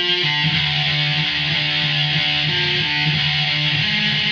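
Distorted electric guitar in drop D tuning playing a heavy riff on the low strings, the first part of a song's main riff.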